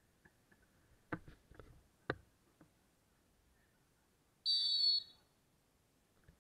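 A referee's whistle blown once in a short, shrill blast of about half a second, after two sharp thuds about a second apart.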